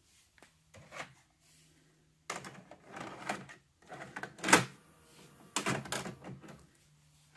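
A VHS cassette pushed into the SV2000 VCR's front slot and taken in by the loading mechanism: a run of plastic clicks and mechanical clunks, the loudest about four and a half seconds in, with a low motor hum in the pauses.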